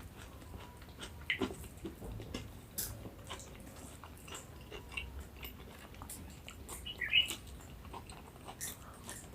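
Close-up eating sounds: chewing and biting on rice and vegetables, with scattered wet mouth clicks and small crunches. There is a brief high squeak about seven seconds in.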